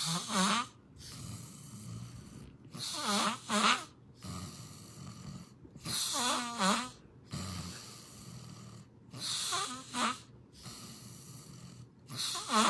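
A person snoring in a steady rhythm. A loud rattling snore comes about every three seconds, with quieter breathing between.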